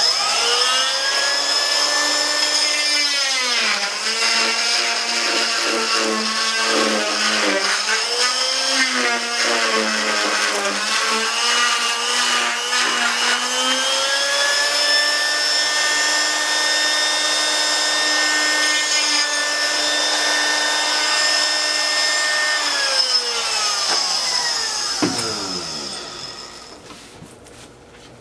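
Oscillating cast saw running and cutting through a fiberglass leg cast at the toe. Its whine dips and wavers in pitch while it cuts, holds steady, then winds down with falling pitch near the end.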